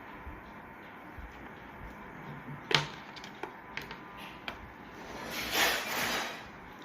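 Handling of the Mi TV Stick's power adapter and USB cable: one sharp click about three seconds in, a few lighter clicks, then a rustle lasting about a second near the end.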